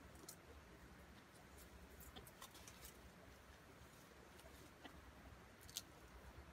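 Near silence: faint outdoor ambience with a few scattered, short high ticks or rustles. The sharpest comes about three-quarters of the way through.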